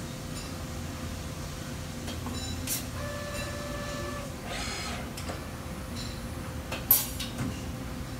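Okuma MCV-AII double-column vertical machining center running with a steady machine hum as its spindle ram is jogged up and down on the Z axis. There is a brief whine about three to four seconds in and a sharp click about seven seconds in.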